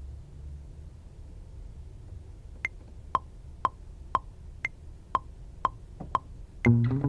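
Metronome clicking at about two beats a second, with a higher-pitched accent click on every fourth beat, counting in a track. A bass and guitar beat comes in near the end.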